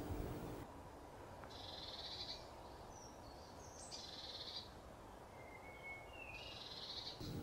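Blue tits giving their scolding alarm call at a jay, a predator: three buzzy churring bursts about two and a half seconds apart, with a few thin whistled notes between them.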